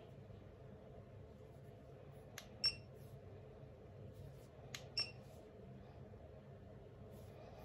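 Two pairs of small plastic clicks from the buttons of a handheld red-and-blue light hairbrush, about two and a half seconds apart. The second click of each pair is louder, with a brief ringing tone. A faint steady hum runs underneath.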